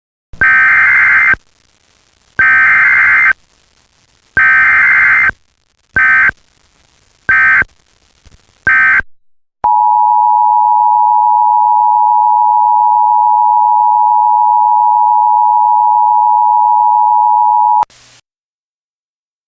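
Emergency Alert System tones. First come six bursts of SAME digital header data, three about a second long and then three shorter. Then the steady EAS attention tone, pitched just under 1 kHz, holds for about eight seconds and cuts off suddenly with a brief crackle. These are the tones that open a new emergency alert.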